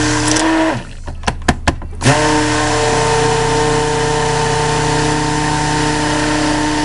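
A 300-watt immersion stick blender running in soap batter of oils and lye. It winds down and stops just under a second in, a few sharp knocks follow, then it starts again about two seconds in and runs steadily, blending the batter toward emulsion.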